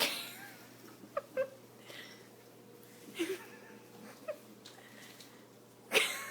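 A few faint, brief squeaky sounds and soft rustles from a pet, spaced out with quiet between them.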